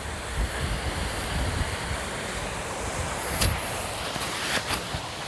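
Wind buffeting the microphone in uneven low rumbles over a steady rush of falling water, with a few faint clicks in the second half.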